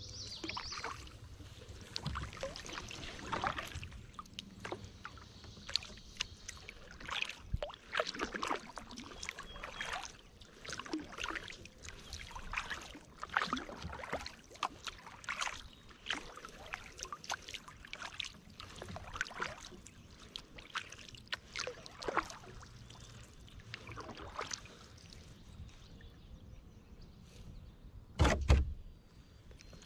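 Kayak paddle dipping and pulling through lake water, with splashes and drips in strokes every second or two. There is a louder thump near the end.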